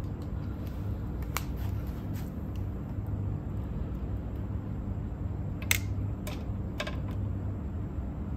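Scattered light clicks and taps of small tools and parts being handled on a cassette deck under repair, over a steady low hum. The sharpest click comes about two-thirds of the way through.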